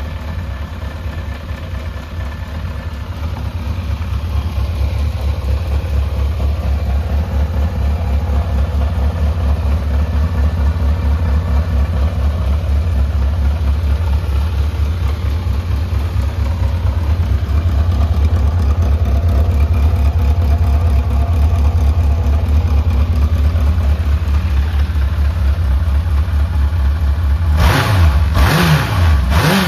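Honda CB750FB's air-cooled inline-four engine idling steadily, then blipped up and down about three times near the end. The seller describes the engine as free of abnormal noises and in top running condition.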